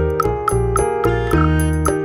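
Background music: a light, bouncy tune with keyboard and bell-like notes over a steady bass and a regular beat.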